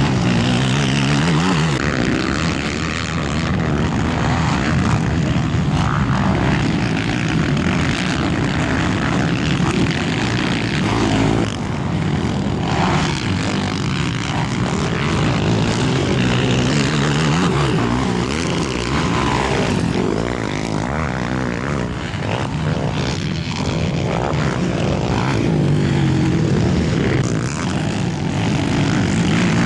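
Engines of racing ATV quads running hard on a motocross track, the revs rising and falling continuously.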